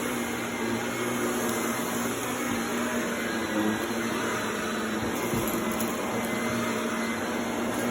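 Vacuum cleaner running steadily: an even motor hum with airflow noise.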